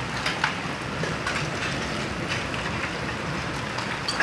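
Hail and rain falling, a steady hiss dotted with scattered sharp ticks of hailstones striking.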